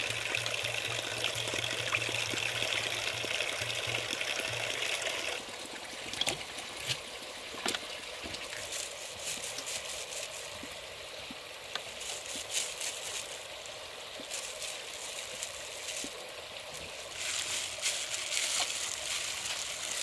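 Water running and trickling, steadier and fuller for the first five seconds, then thinner with scattered light clicks and knocks.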